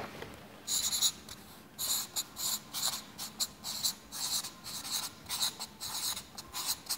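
Marker pen squeaking across flip-chart paper in a string of short, high-pitched strokes, starting about a second in, as a word is written.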